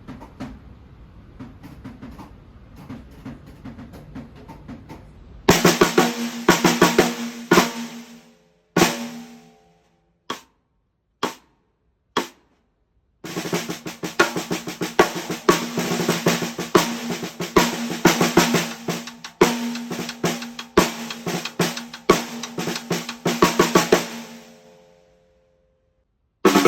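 Gretsch 14 x 5 USA Custom solid aluminum snare drum being played: quiet, rapid strokes for about five seconds, then loud hits with a ringing pitched note. A few single hits follow, each cut off by dead silence, then a long run of loud, busy playing that dies away near the end.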